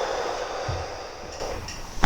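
A person breathing out slowly and steadily, the patient's exhale on a deep breath before a chiropractic back adjustment.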